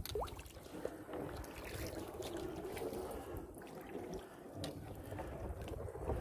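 Soft paddle strokes of a sit-on-top fishing kayak, with water trickling and dripping off the paddle blades as they dip and lift.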